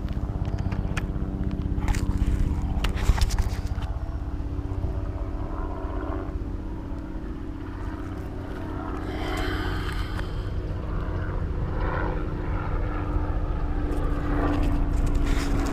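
5-inch FPV racing quadcopter's brushless motors and propellers running with a steady hum, as heard from the onboard action camera. A few sharp knocks come a couple of seconds in, and the hum rises a little near the end.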